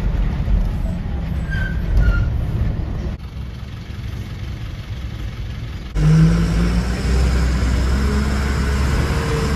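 Truck engine running as the truck drives, heard from inside the cab with road noise. About six seconds in it gets louder and the engine note rises as it accelerates, then holds steady.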